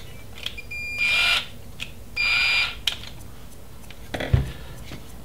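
Small cordless electric screwdriver running in two short bursts of high whine, each about half a second, driving screws into the RC truck's roof light bar. Light clicks and knocks of handling plastic parts and tools sit between the bursts, with a firmer knock about four seconds in.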